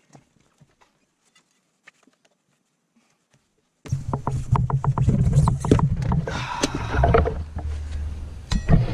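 Cordless DeWalt impact driver hammering as it backs a screw out of a wooden chopping block. It starts suddenly about four seconds in, after a few faint handling clicks, and runs as a loud, rapid rattling over a low hum.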